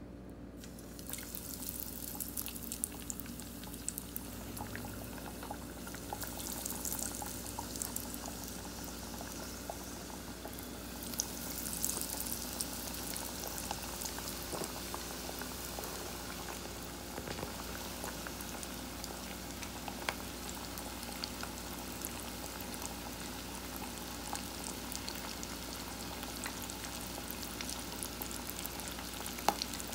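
Egg-washed, breadcrumbed perch fillets sizzling in lard heated to 350 °F in a pot on the stove, with scattered sharp pops. The sizzle starts about a second in, as the fish goes into the fat.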